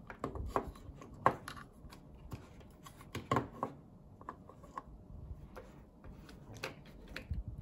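Scattered light clicks and taps at irregular intervals, from hands handling small objects on a bench, with a few louder taps about a second in and a little after three seconds in.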